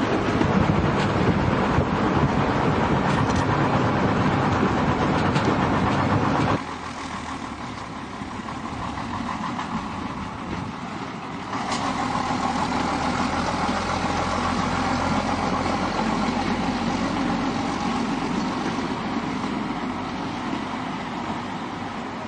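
Engine of an old Fiat railcar running. The sound drops abruptly about six and a half seconds in and rises again about eleven and a half seconds in.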